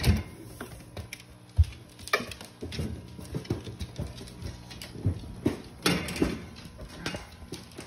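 Boxer dogs moving about on a hard floor: irregular pattering footsteps and claw taps, with a few louder knocks, one sharp thud about one and a half seconds in.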